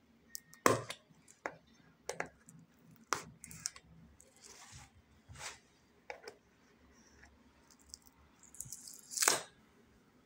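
Kitchen knife blade slitting the seal sticker on a cardboard smartphone box: a scattered series of short, sharp scrapes and ticks, with the loudest scrape about nine seconds in.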